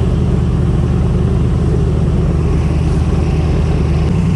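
Airboat engine and propeller running steadily at speed while towing another craft. The engine note changes slightly near the end.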